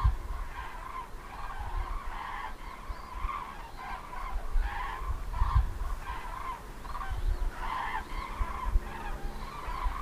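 A flock of common cranes calling in flight: many overlapping, repeated trumpeting calls, the contact calls of a migrating flock. A low rumble comes and goes underneath.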